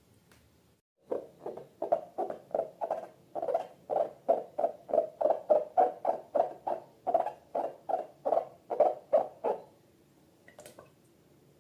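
Slime squeezed and squished by hand in a quick, even rhythm of about three squishes a second. It starts about a second in and stops near the end.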